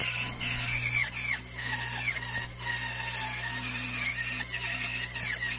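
Bandsaw running as it cuts through a dry eucalyptus log: a steady hum with short, high, falling squeaks repeating about twice a second.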